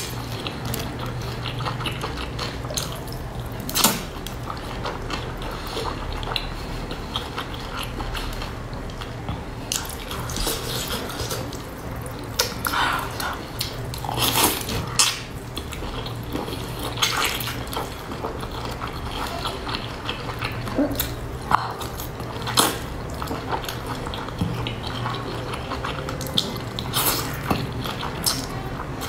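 Close-miked slurping and wet chewing of wide flat noodles: many short sucking slurps and lip smacks scattered irregularly, a few with a brief whistling tone, over a steady low hum.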